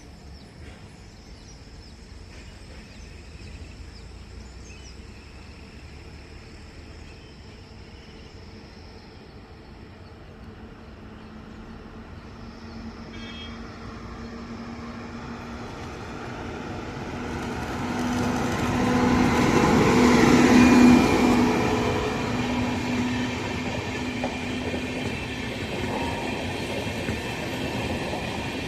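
A large vehicle's rumble and steady hum growing louder as it approaches, loudest about two-thirds of the way in, then running on at a steady level.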